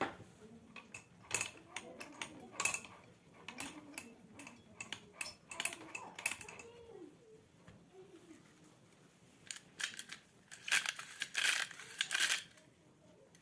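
Small metal clicks and clinks of hand tools and chainsaw parts being handled during a repair, with a busier stretch of scraping and clattering near the end.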